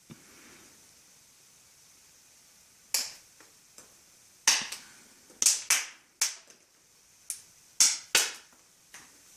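Popcorn kernels popping in a pan of hot oil: about a dozen sharp pops at irregular intervals, some in quick pairs, starting about three seconds in, over a faint steady hiss.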